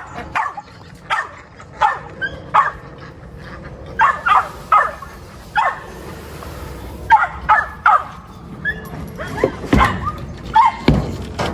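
Dogs yipping and barking excitedly in short, high calls, one or two a second at irregular spacing.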